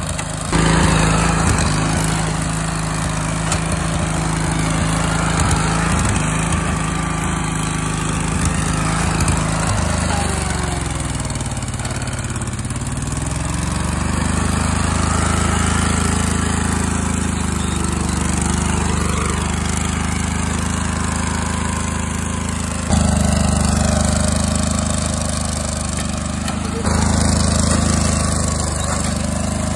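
Lawn tractor engine running steadily under a mower deck. Its pitch sags and recovers about ten to fourteen seconds in as the engine labours driving over a bicycle, and it gets louder twice near the end.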